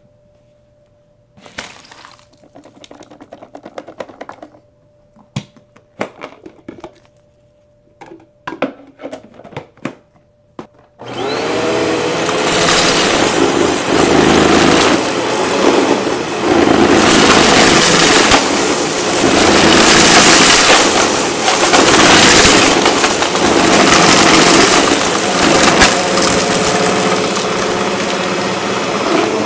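Scattered clicks and short rattles of debris being tipped onto carpet, then about eleven seconds in a Eureka Maxima 12-amp upright vacuum switches on with a rising whine. It runs loudly, with uneven crackling and crunching of debris. Its brush roll is broken.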